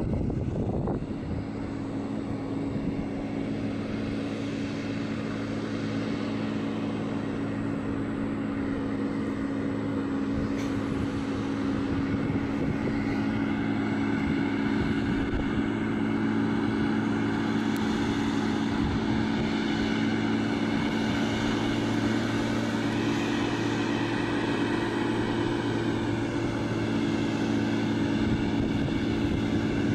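Diesel engine of a loaded Scania logging truck running steadily as the truck drives on a dirt road, slowly growing louder as it approaches. The engine note rises a little about two-thirds of the way through.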